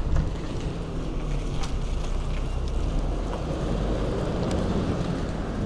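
Wind buffeting the microphone, a steady rumbling noise, with a few light clicks from handling tools or parts.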